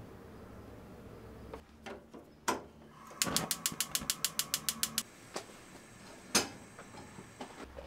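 Gas hob burner igniter clicking rapidly, about eight clicks a second for nearly two seconds, as the burner lights, followed by a faint steady hiss. One single sharp click comes about a second after the clicking stops.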